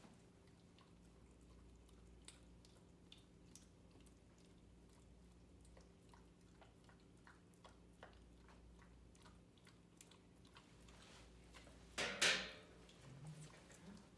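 A dog licking food off a spoon: faint, irregular wet licking and smacking clicks over a low steady room hum, with one brief louder noise near the end.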